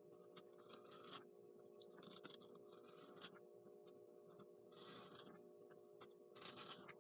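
Faint, irregular scratching strokes of a craft knife cutting through foam board, over a steady low hum.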